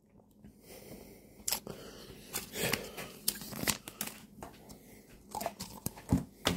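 Light handling noise: a scattered series of small clicks and taps with some crinkling, as small plastic toy figures are set down on a wooden table and foil-wrapped chocolate eggs are handled.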